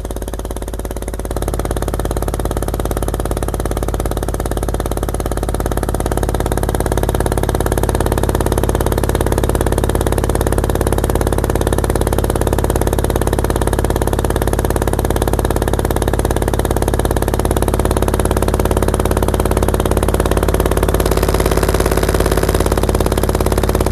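Dayton Audio Epique E150HE-44 subwoofer driver, bare on the bench, driven with a low-frequency test tone and pushed to its maximum excursion: a steady low tone with many overtones. It gets louder about a second in and again around six seconds as the amplifier volume is turned up.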